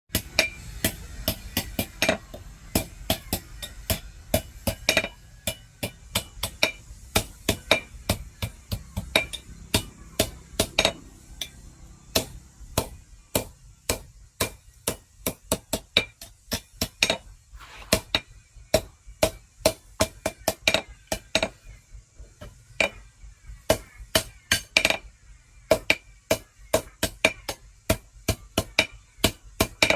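Hand hammer striking steel on an anvil while forging a meat cleaver: a quick, uneven run of ringing metallic blows, about two to three a second, with short pauses between runs.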